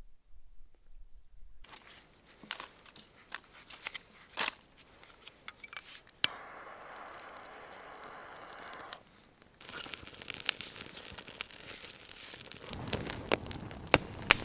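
Crinkly rustling and crackling of gear being handled. About six seconds in there is a sharp click, then a steady hiss for about three seconds, and the rustling grows louder near the end.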